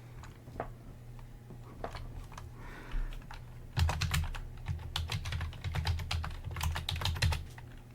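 Typing on a computer keyboard: a few scattered keystrokes, then a quick run of keys from about four seconds in until near the end, as a password is typed in at a text prompt.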